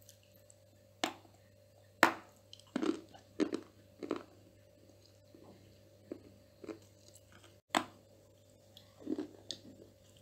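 Biting and chewing crunchy edible clay (calabash chalk, nzu) close to the microphone: several sharp, crisp crunching bites, the loudest about two seconds in, each followed by a few quieter crunchy chews. A faint steady hum lies underneath.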